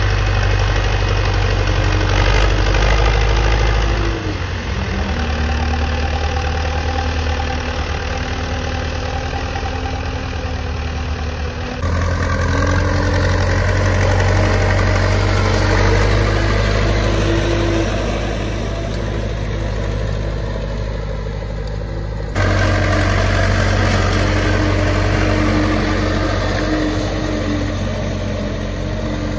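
HMT 5911 tractor's diesel engine running steadily while pulling a harrow. Its pitch and loudness change abruptly three times.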